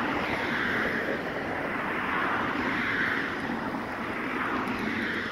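2019 Ford Mustang convertible driving by slowly, its engine and tyres on asphalt heard from outside as a steady noise that swells and fades a few times.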